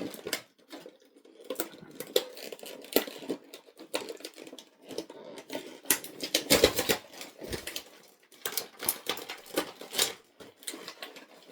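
Plastic action-figure packaging being pulled and torn open by hand: irregular crinkling, clicking and tapping of plastic, busiest about halfway through.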